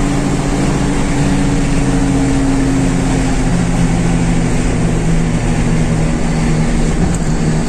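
Maruti Suzuki car driving at speed, heard from inside the cabin: a steady engine drone under road and wind noise.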